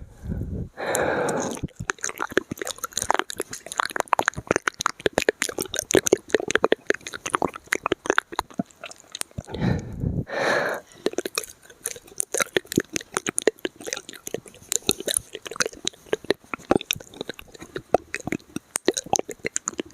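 Close-miked ASMR mouth sounds: a fast, irregular run of wet mouth clicks and smacks, broken twice by a longer breathy sound, about a second in and again around ten seconds.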